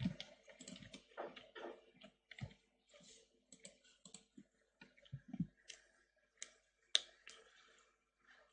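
Faint, irregular clicking of a computer mouse and keyboard, some clicks with a soft low thud beneath them.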